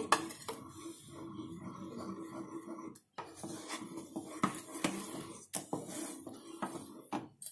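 Wooden spatula stirring thick custard and bread crumbs in a stainless steel saucepan, with irregular scraping and light knocks against the pan.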